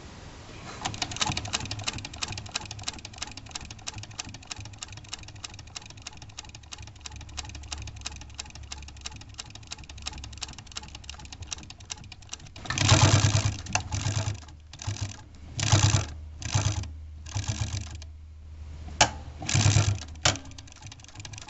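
Consew 282R-1 postbed needle-feed industrial sewing machine stitching through leather, with a fast, even clatter of needle strokes over the low hum of its servo motor for about twelve seconds. After that come several louder, rougher bursts of noise, stopping and starting.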